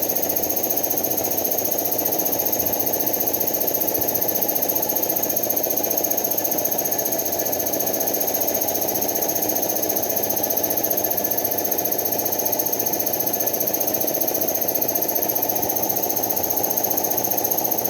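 Powder-coating workshop machinery running steadily at a constant level, a mechanical drone with a steady high-pitched whine over it.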